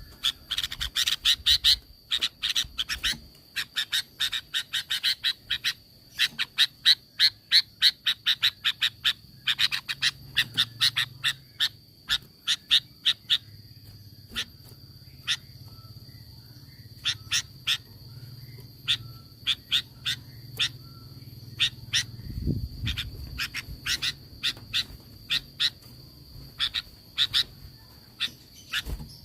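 Sooty-headed bulbul (kutilang) giving rapid, sharp chattering calls. For about the first ten seconds they come in quick dense runs of several notes a second, then thin out to scattered single notes. A steady high tone runs underneath.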